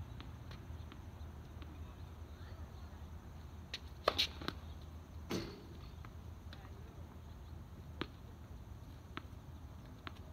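Tennis ball being struck and bouncing: a few sharp knocks, the loudest cluster about four seconds in and another a second later, then fainter single knocks, over a low steady rumble.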